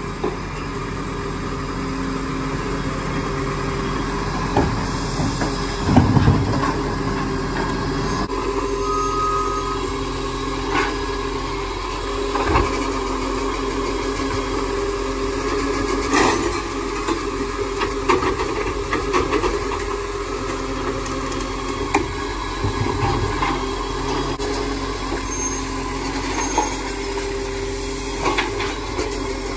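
Side-loading garbage truck running steadily while its automated arm lifts, tips and lowers wheelie bins, with several clanks and bangs from the arm and bins, the loudest about six seconds in.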